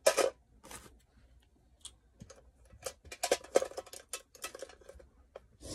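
Scattered light clicks, taps and rustles of makeup brushes and cosmetic products being handled, with a denser run of them about three seconds in.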